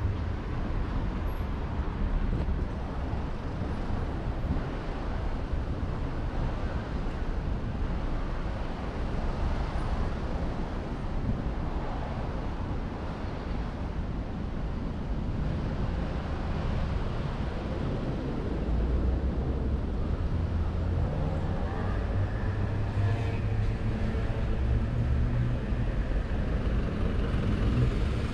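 Steady city street traffic: a constant low rumble of passing cars and trucks. About three-quarters of the way in, one vehicle's engine is heard changing pitch as it passes close by.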